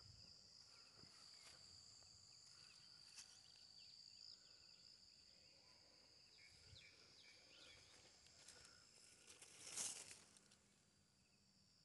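Faint, steady high-pitched trilling of insects in the field, with a few small chirps over it. About ten seconds in there is a brief rustle of leaves, louder than the rest, as the watermelon vines are brushed.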